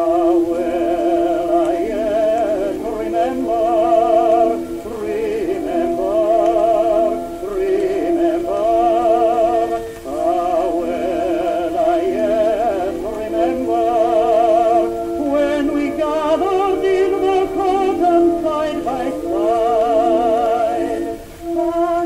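A 1923 acoustically recorded 78 rpm shellac record playing a vocal duet with orchestra: a woman and a man singing with wide vibrato over the accompaniment, with short breaks between phrases.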